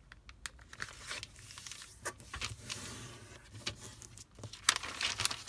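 A large square sheet of paper being handled and folded in half diagonally: crisp rustles and crinkles with scattered sharp creasing clicks, loudest near the end.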